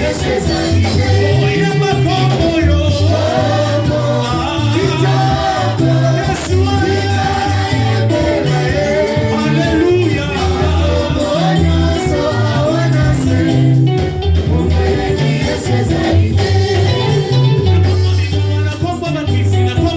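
Gospel worship music: voices singing over a band with a steady, stepping bass line.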